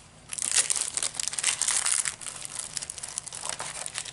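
Plastic and paper packaging of a diamond painting kit crinkling as it is handled and unwrapped by hand: a dense burst of crinkling in the first two seconds, then lighter scattered crinkles.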